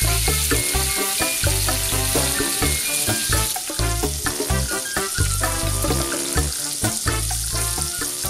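Vegan butter sizzling as it melts in a hot cast iron skillet, the hiss strongest in the first few seconds and easing after. Background music with a bass line plays throughout.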